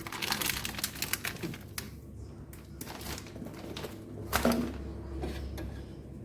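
Household items being handled: a quick run of clicking and rattling, then several separate knocks and a louder thump about four and a half seconds in.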